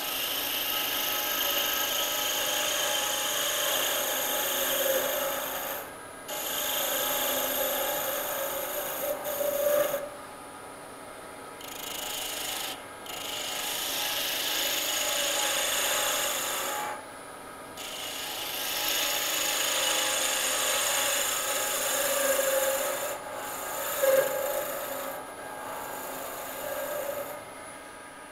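Woodturning chisel cutting a spinning wooden pen part on a lathe, shaping it in repeated passes of a few seconds with short breaks between cuts.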